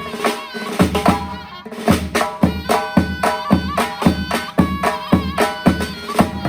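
Surnay, the Uzbek shawm, playing a bending melody over steady drum strokes about twice a second: Uzbek folk music.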